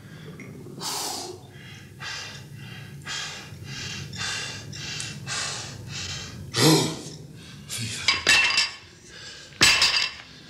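A man breathing hard and rhythmically, about two breaths a second. Near the end come a few louder bursts and a sharp knock.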